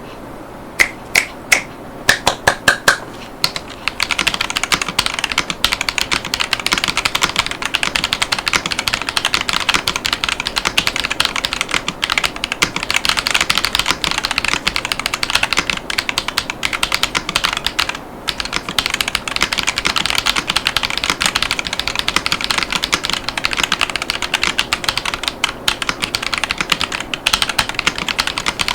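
Typing on a Yunzii X75 mechanical keyboard with KiiBoom Taro Cream tactile switches and polycarbonate Cherry-profile keycaps on a thin acrylic case, giving a clack sound. A few separate keystrokes in the first three seconds, then fast continuous typing, with a short pause about 18 seconds in.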